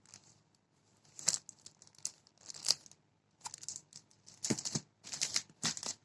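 Packaging being handled and torn open: irregular bursts of crinkling and rustling, busiest near the end.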